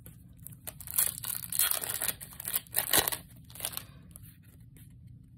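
Foil booster-pack wrapper being torn open: crinkly ripping from about a second in until nearly four seconds, with a sharp click about three seconds in.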